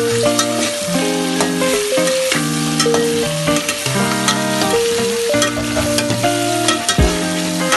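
Background music with a stepping melody over frying food sizzling in hot oil, with sharp clicks of a utensil stirring in the pan.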